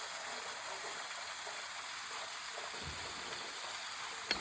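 Small stream running steadily with an even splashing hiss, and one sharp click near the end.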